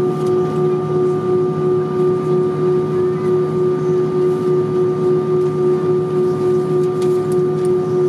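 Steady drone inside an Airbus A320 cabin on the ground: a constant hum with a fixed mid-pitched tone over a rushing background, slightly pulsing in loudness.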